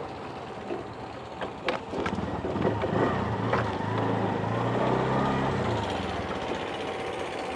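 Auto-rickshaw engine running as the three-wheeler drives, heard from inside its open cab. The engine note rises and falls in the middle, with a few sharp rattles about one and a half seconds in.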